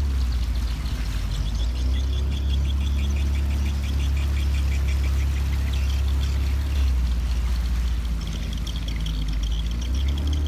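A motorboat's engine running steadily at low speed, with water washing along the hull and a rapid high pulsing chatter above it through most of the stretch.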